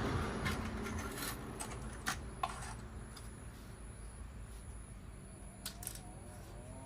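A few scattered light clicks and taps, typical of plastic toy train pieces being handled, over a low steady hum.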